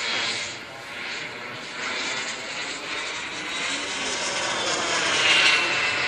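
MW44 model jet turbine of an Opus V-jet RC model flying overhead: a steady high whine over rushing air. It grows louder about five seconds in as the model passes closer, its pitch sliding slightly down.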